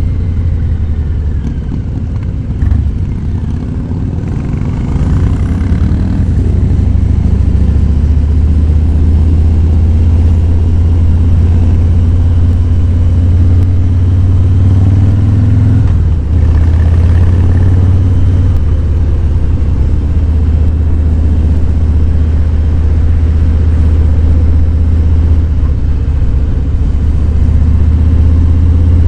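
Harley-Davidson Fat Boy 107's air-cooled Milwaukee-Eight V-twin running under way, a deep steady rumble. The engine eases off a couple of seconds in, then picks up again as the throttle opens, with a brief break in the note about sixteen seconds in.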